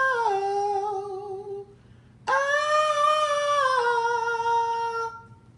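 A woman singing two long, high held notes without words, each dropping a step lower partway through.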